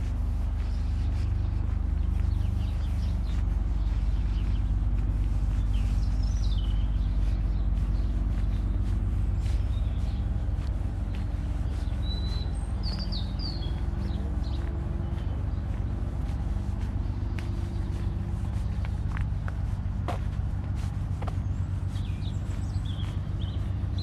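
Small birds chirping in short bursts a few times, over a steady low rumble that carries the most sound, with faint scattered ticks.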